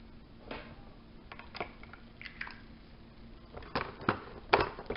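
Small plastic toys and their plastic packaging being handled on a table: scattered clicks and crinkles, with a few louder knocks near the end.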